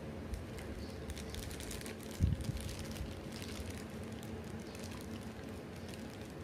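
A thin plastic wrapper crinkling in the hands as a mochi is held and eaten, in short, crackly bursts, with one dull thump about two seconds in, over a low steady hum.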